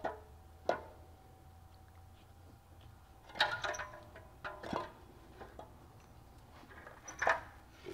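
A rusty exhaust manifold being twisted out of the engine bay by hand, knocking and scraping against metal parts: a few irregular clanks, some with a brief metallic ring.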